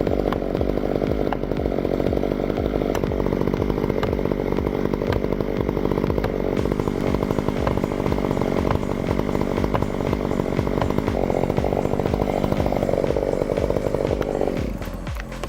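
Chainsaw running at high revs, cutting steadily through a tree trunk during a felling cut, easing off about a second before the end.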